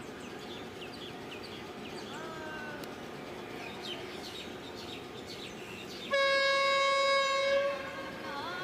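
Train horn: a faint call whose pitch bends up about two seconds in, then a loud, steady blast lasting about a second and a half near the end. Birds chirp throughout.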